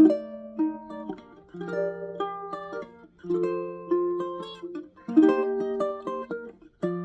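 Ono tenor ukulele in cedar and Bolivian rosewood being played: plucked and strummed chords with melody notes ringing out, a new phrase about every couple of seconds.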